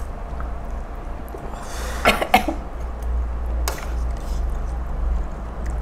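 A person coughs twice in quick succession about two seconds in, while eating extremely spicy noodles, over a steady low hum. A short, sharp sound follows a second or so later.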